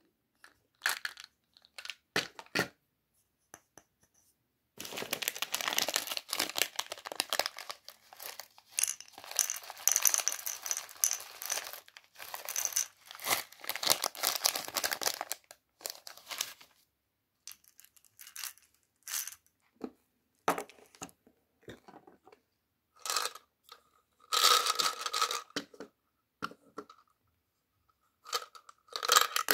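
A plastic candy wrapper being torn open and crinkled by hand for about ten seconds, with scattered short clicks and taps before and after.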